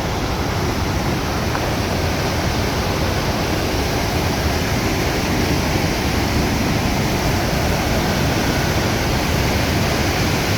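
Loud, steady roar of powerful rushing water close by, an even wash of sound with no breaks.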